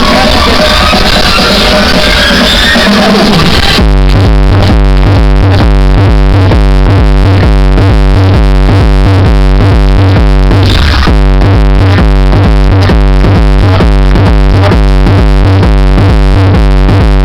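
Very loud electronic music played through a car sound system. About four seconds in it switches to a different track with a heavy, fast-pulsing bass line.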